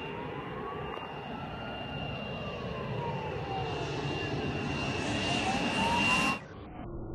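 Air Tractor AT-602's turboprop engine on a low approach, growing steadily louder, with a steady high turbine whine over the propeller and engine noise. About six seconds in the sound drops abruptly to a dull, muffled hum.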